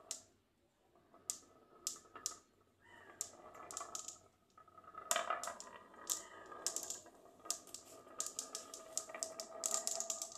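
Glass marbles rolling down a wavy groove in a wooden board and clicking against one another: sparse ticks at first, then a busy run of quick irregular clicks from about five seconds in, over a faint steady ringing from the rolling.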